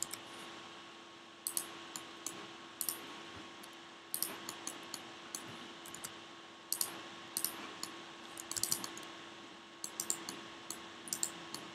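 Computer keyboard and mouse clicking in short irregular clusters, faint, over a steady low hum.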